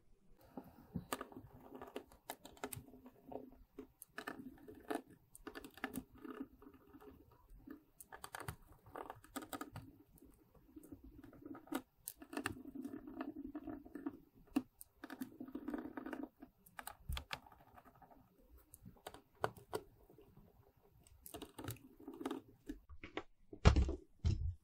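Hands handling small parts and the circuit board of an opened audio mixer: irregular clicks, taps and rustling, with a heavier knock near the end.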